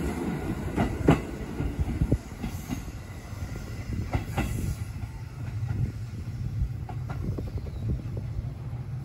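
A JR Central 213 series two-car electric train pulling away from the platform, with a low running rumble and its wheels clicking over rail joints. The clicks are strongest in the first two seconds and come unevenly after that as the train moves off.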